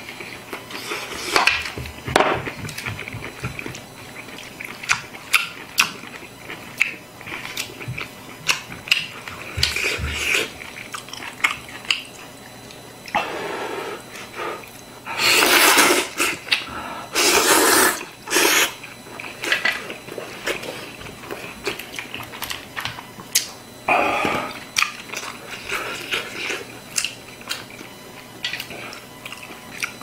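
Slurping and chewing kalguksu noodles, with a few long loud slurps around the middle and another a little later, and small clicks of chopsticks against a bowl between them.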